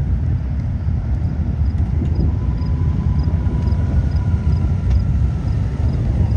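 Motorcycle engine running with a steady deep rumble.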